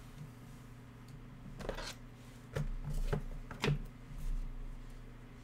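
Trading cards in plastic sleeves and holders being handled and set down on a table: a short rustle, then a few light plastic clacks, over a steady low hum.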